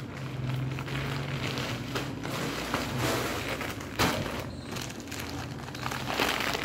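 Plastic courier mailer bag crinkling and rustling as it is handled and turned over, with a few sharper crackles.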